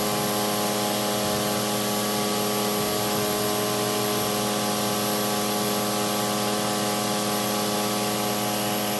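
Akira Seiki SV1050 vertical machining center running steadily: a hum of several steady tones with a thin high whine above it and an even hiss.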